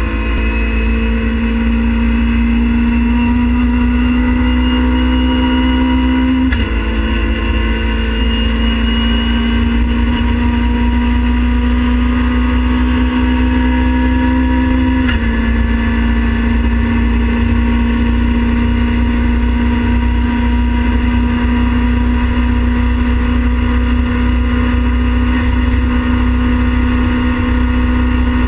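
Race car engine heard from inside the cabin under full throttle, its pitch climbing slowly and dropping with an upshift about six and a half seconds in and again about fifteen seconds in.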